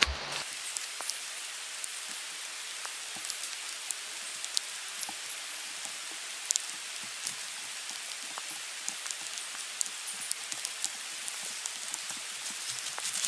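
Steady rain falling in woodland: an even hiss with many separate drops ticking sharply.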